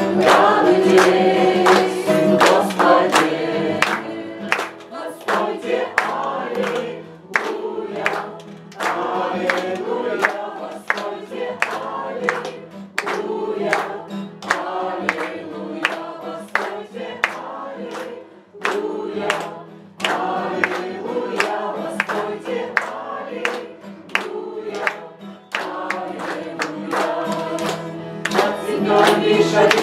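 Congregation and worship team singing an upbeat praise song, male and female voices over electronic keyboard and electric guitar, with hand-clapping in steady time on the beat.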